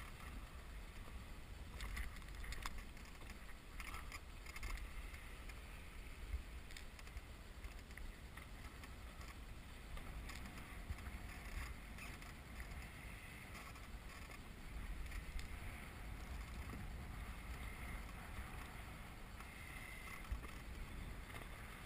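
Water lapping against the hull of a small inflatable boat, with wind rumbling on the microphone and a few faint ticks.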